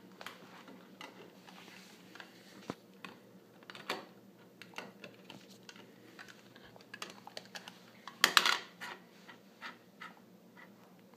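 Irregular clicks and scrapes of a plastic computer mouse being pawed and mouthed by a dog on a tile floor, with a louder, dense flurry of clicks a little past eight seconds in.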